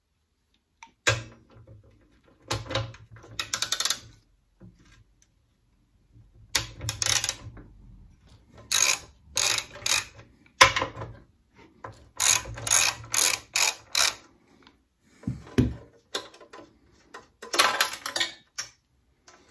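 Socket ratchet wrench clicking in short bursts, worked back and forth to undo the fixings on a Suffolk Super Colt lawnmower's engine cowling, with one sharp metal knock about halfway through.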